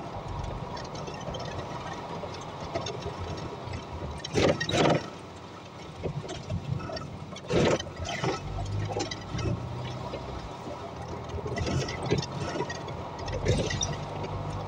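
Running noise heard inside a Volvo hybrid city bus on the move, with tyres hissing on a wet, slushy road. Two brief loud noises break through, about four and a half and seven and a half seconds in.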